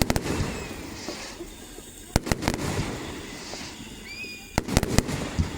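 Fireworks exploding: a quick cluster of sharp bangs at the start, two single reports a couple of seconds in, and another cluster of bangs near the end.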